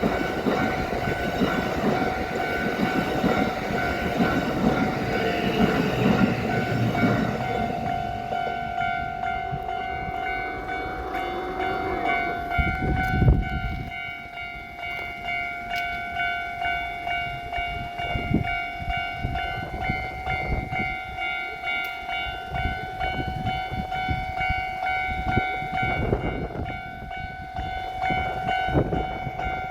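Level-crossing electronic warning bell ringing steadily throughout, over the rumble of a passing train that is loudest in the first half and cuts away about 13 to 14 seconds in. After that the bell's regular pulsing beat stands out.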